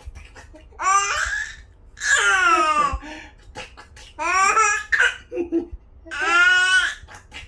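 A baby laughing and babbling in four long, high-pitched squealing bursts, some falling in pitch. There are a few short clicks in between.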